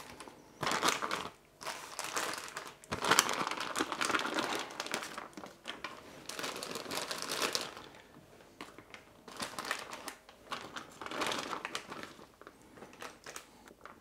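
Clear plastic IKEA zip bag crinkling and rustling in irregular bursts as raw chicken thighs are pushed into it by hand, with short pauses between handlings.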